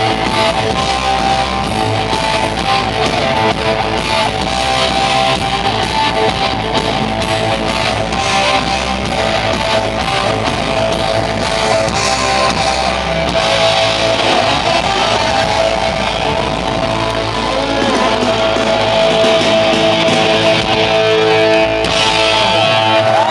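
Live rock band playing loudly, with distorted electric guitars from Telecaster-style guitars through Marshall stacks, over bass and drums. Close to the end the bass and drums drop out, leaving guitar chords ringing.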